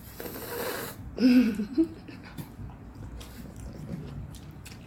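A breathy exhale lasting about a second, then a short wordless voiced sound, followed by faint scattered clicks and smacks of someone eating.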